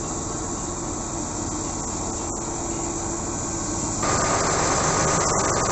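Motor vehicle running steadily, heard as an even rushing noise that steps up suddenly about four seconds in, with a few faint clicks near the end.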